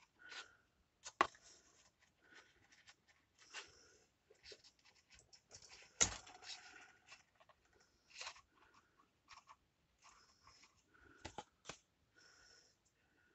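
Paper and card being handled on a work table: intermittent rustling and scraping with small taps, and sharp knocks about a second in and, loudest, about six seconds in.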